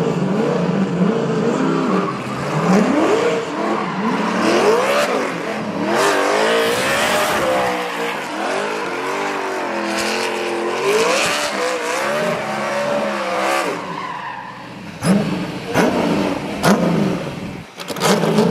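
V8-engined Nissan Skyline 'Hakosuka' drifting: the engine revs up and down again and again over tyre squeal. Near the end come a few sharp pops.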